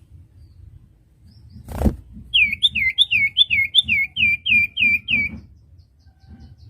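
Common iora (cipoh) singing a rapid series of about ten short down-slurred whistled notes, about three a second, for some three seconds. A single sharp knock comes just before.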